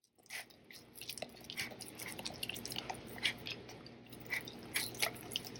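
Dogs licking and chewing a brain-shaped treat: irregular wet smacks and clicks of tongue and jaws, a few of them louder.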